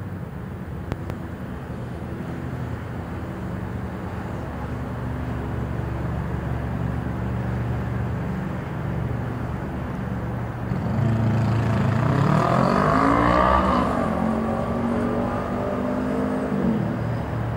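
Steady drone of motor engines. About eleven seconds in, a louder engine passes close, its pitch rising and then falling over several seconds.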